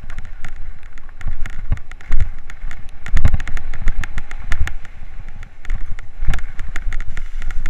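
Mountain bike running down a rough, wet downhill trail: a constant clatter of sharp knocks and rattles over a heavy low rumble.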